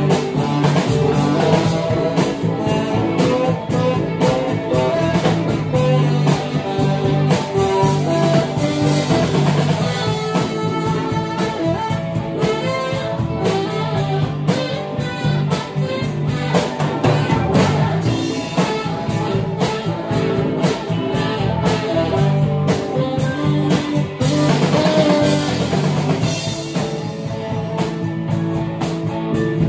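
Small band jamming live: two electric guitars and an electric bass guitar play together over a steady, evenly spaced beat.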